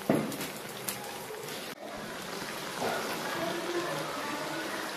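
Curry masala sizzling and bubbling in a kadai. Near the start the metal spatula strikes the pan with a sharp clank.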